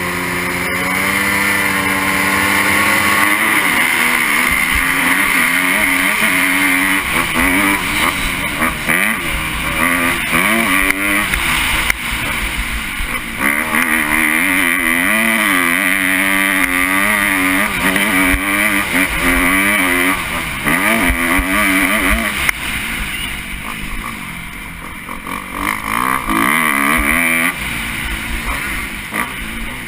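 Kawasaki KX250F four-stroke 250 motocross engine, heard from the onboard camera, held steady for a couple of seconds and then revving hard, its pitch climbing and dropping again and again as the rider shifts and works the throttle around the track.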